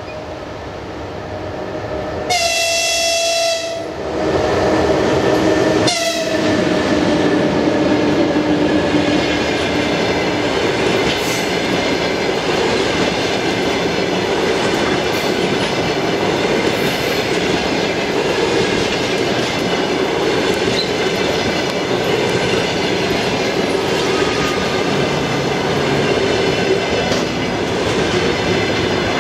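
EP1P electric locomotive approaching and sounding its horn once for about a second and a half, then a short second blast as it passes, its pitch dropping. The train of passenger coaches then runs past steadily at speed, with wheels clicking over the rail joints.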